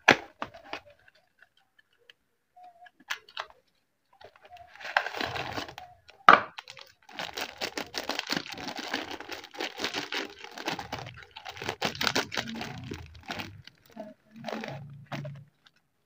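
Soap packaging being opened by hand: a few sharp cracks from the cardboard box, the loudest about six seconds in, then several seconds of the bar's plastic wrapper crinkling and tearing as it is peeled off, with a last burst of crinkling near the end.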